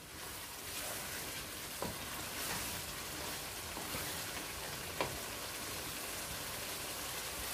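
Aubergine curry sizzling steadily over high heat in a non-stick wok as a wooden spatula stirs it, with two short clicks of the spatula against the pan, near two seconds and at five seconds.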